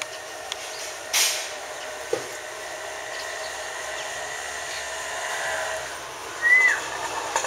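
Parrots calling: a short harsh screech about a second in and a loud, short whistled call that rises and falls near the end, over a faint steady hum.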